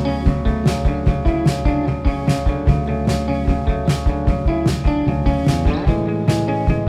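Rock band playing live without vocals: guitars hold chords over a steady drum beat, with a chord change near the end.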